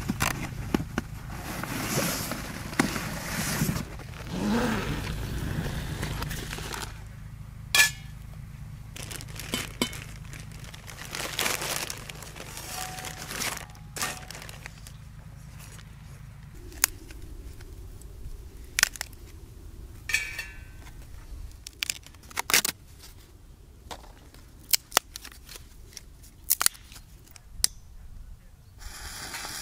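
Camping gear being handled: fabric rustling as bags are packed into a plastic motorcycle top case, a plastic bag crinkling as a grill plate is pulled out, and wooden kindling sticks clacking against a perforated steel fire cylinder. Many sharp clicks and knocks, with a low steady hum in the background through the first half.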